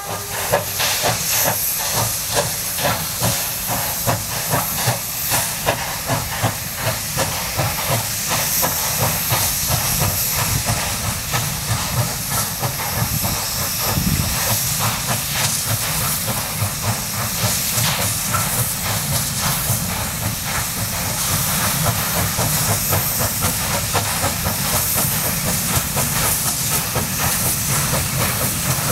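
Steam locomotive pulling away with a train of empty wagons, its exhaust beating in a quick, even rhythm over a constant hiss of steam.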